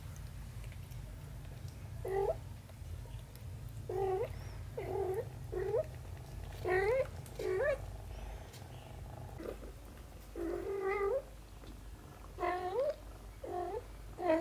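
Domestic cat meowing in about ten short calls, each bending up or down in pitch, from about two seconds in. A low, steady purr runs underneath and stops about two-thirds of the way through.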